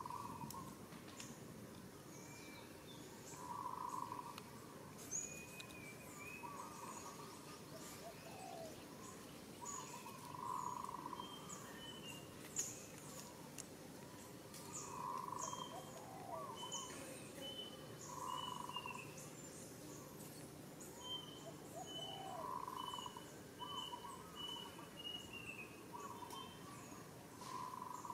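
Wild birds calling: one short, hollow call repeated every three to four seconds, with quick high chirps from other birds between.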